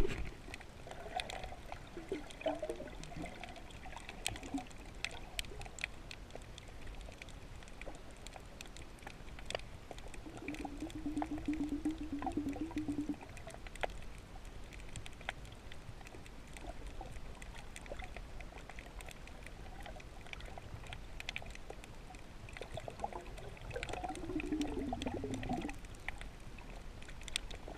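Underwater ambience heard through a submerged camera: a muffled wash of water noise scattered with sharp clicks and crackles. A low wavering hum comes in twice, briefly a third of the way in and again near the end.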